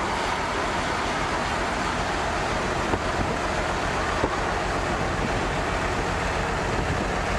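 V-22 Osprey tiltrotor flying overhead: a steady rush of proprotor and turboshaft engine noise with a fast low throbbing.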